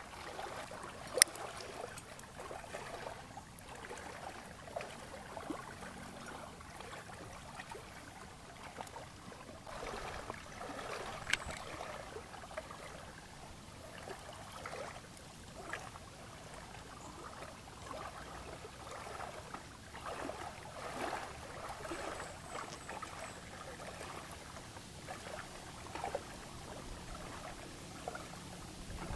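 Small waves lapping gently at a lakeshore, swelling and fading. There is a sharp click about a second in and another about eleven seconds in.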